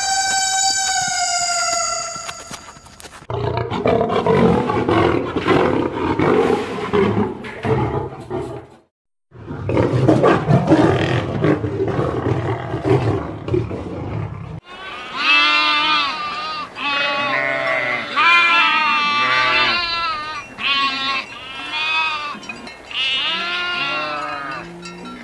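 A bull elk's high whistling bugle, about two seconds long and sliding slightly downward. Then come two long, rough lion roars with a brief silence between them, and then sheep bleating over and over.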